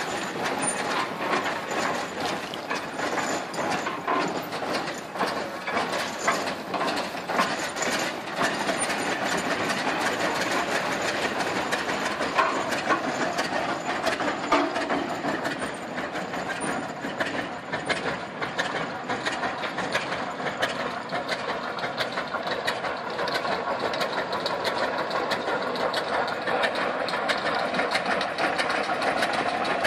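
1918 Case 20-40 tractor's two-cylinder engine running with a steady, rapid mechanical clatter while the tractor is driven off.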